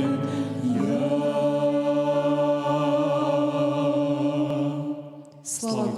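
Church choir holding the final sung chord of a song, the long note wavering with vibrato before it cuts off about five seconds in. A brief further burst of voice comes just before the end.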